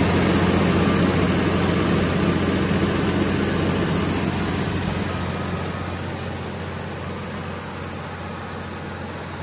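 Cummins KTA19-G4 inline-six diesel engine of a 500 kW generator set running steadily at its 1800 RPM generator speed: an even, low engine hum. It grows gradually fainter over the last few seconds.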